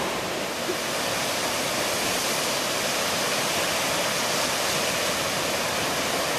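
Waterfall in flood, its falling water giving a steady, even rush.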